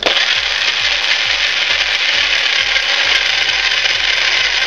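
Single-serve bullet blender starting abruptly and running steadily, its motor spinning the blade as it crushes ice cubes in water and shake powder.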